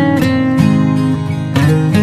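Background music led by acoustic guitar, with plucked and strummed notes changing every half second or so.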